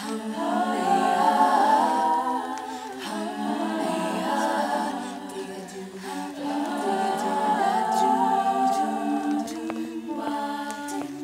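All-female a cappella group singing unaccompanied, several women's voices holding different parts at once in chords.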